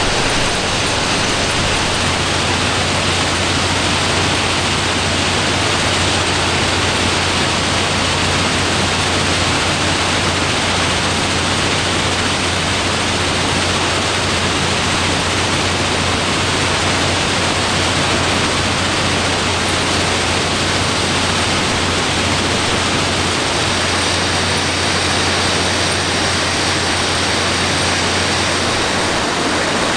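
Plasser & Theurer RMW 1500 ballast cleaning machine at work: its engines and conveyors make a steady, dense noise over a constant low hum, with ballast stone moving through the machine.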